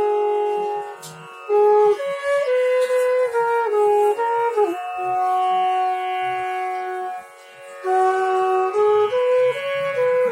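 Bansuri being played for a note test: a slow melodic line of held notes stepping up and down, with a long low note held through the middle. The playing pauses briefly about a second in and again about seven seconds in.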